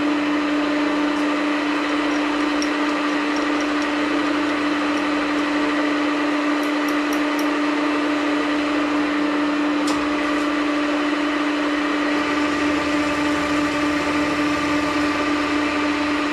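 Vertical milling machine with an end mill cutting hex flats on a stainless-steel plug: a steady, loud cutting tone over the spindle's running noise, with a few faint ticks.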